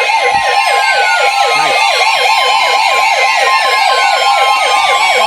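NOAA weather radios sounding their warning alarm together: a steady alert tone with a fast siren-like yelp repeating about six times a second over it, and slower falling sweeps above. It is the alarm for an incoming severe thunderstorm warning.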